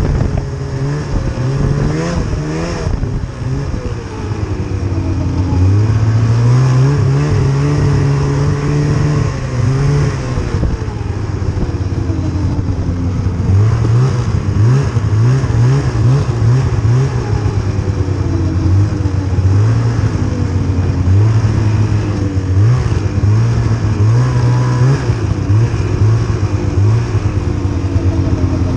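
Snowmobile engine running under way, its pitch rising and falling again and again as the throttle is opened and eased off.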